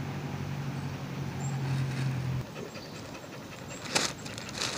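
A steady low hum stops abruptly after about two and a half seconds. Near the end a clear plastic bag crinkles sharply twice as it is handled.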